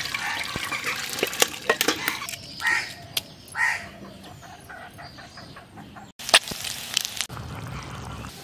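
Water pouring off boiled eggs and potatoes into a metal colander, then sharp cracks and crackles of eggshell being peeled, with a hen clucking twice. A sudden knock about six seconds in, followed by a low rumbling noise.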